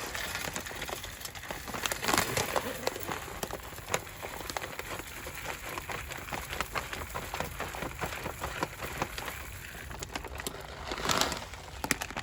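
Dry bird food mix of seed chips, nuts and dried mealworms poured and shifted, a dense patter of many small pieces, with louder surges about two seconds in and near the end.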